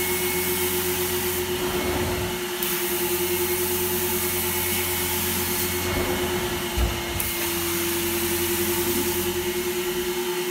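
Hot-water carpet extraction machine sucking through a stainless steel floor wand on carpet: a steady vacuum hum with one constant tone and hiss. The hiss thins out briefly three times, and a single dull knock sounds about two-thirds of the way through.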